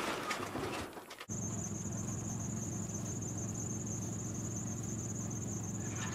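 Rustling and knocking handling noise as a wood-and-wire chicken tractor is moved, cut off about a second in; then a steady high chirring of insects such as crickets, over a low steady hum.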